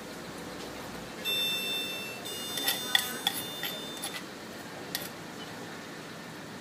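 A high electronic beep lasting about a second, followed by a quick run of sharp clicks and light knocks, with one more click a couple of seconds later.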